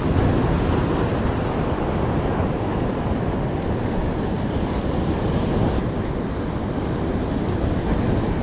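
Surf washing against a rock jetty, with wind buffeting the microphone in a steady low rumble.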